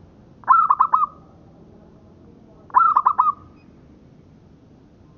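Zebra dove (local perkutut) cooing: two short phrases of about four quick, bubbling notes each, a couple of seconds apart.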